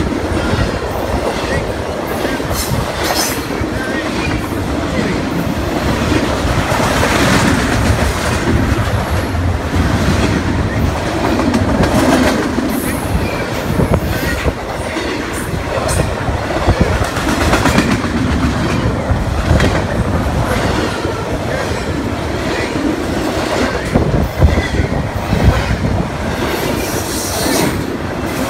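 Norfolk Southern double-stack intermodal freight train rolling past close by: a loud, steady rumble of steel wheels on rail, with clickety-clack over the rail joints.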